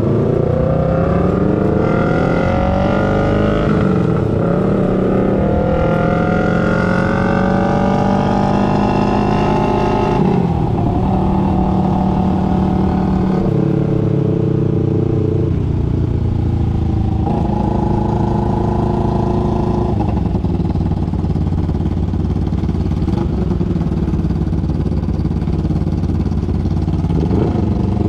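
A 250 cc parallel-twin sport motorcycle engine pulling up through the gears, its pitch climbing and then dropping at each shift several times, before settling into steadier running at a cruising pace.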